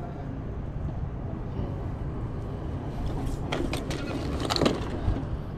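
Plastic dolls and toys clattering and rustling as hands rummage through a cardboard box of them, with a run of sharper clicks and rustles about three and a half to four and a half seconds in. Under it, a steady low rumble.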